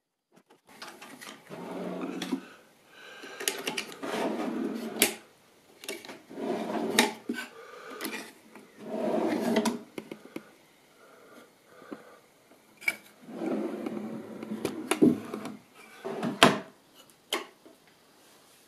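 Plywood drawer pushed and pulled open and shut several times on metal telescopic drawer slides: a rumbling slide of a second or two each time, with sharp knocks and clicks as it reaches the end of its travel.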